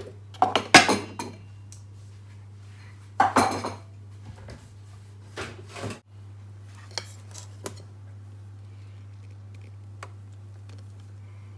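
Kitchen utensils clattering against dishes and pans in a few short bursts, the loudest about a second in and again around three and a half seconds in, then a few lighter clinks. A steady low hum runs underneath.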